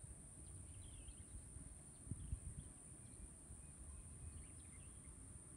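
Faint outdoor ambience: a steady high-pitched insect drone, a few faint bird chirps, and occasional low rumbles.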